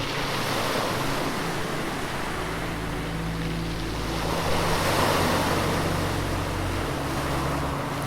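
Waves breaking, a rushing wash that swells about five seconds in, over low sustained drone notes that shift pitch a few times.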